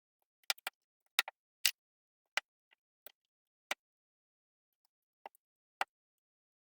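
Lego bricks clicking as they are handled and pressed together: about ten sharp, irregular plastic clicks and taps with silence between them, pausing for a second or so before the last two.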